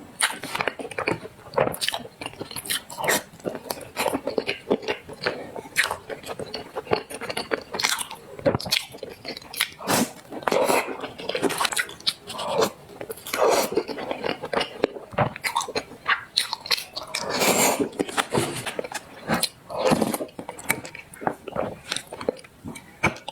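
A person eating black sesame paste close to the microphone: chewing and wet mouth sounds, with many quick irregular clicks and a few longer, louder slurping-like stretches.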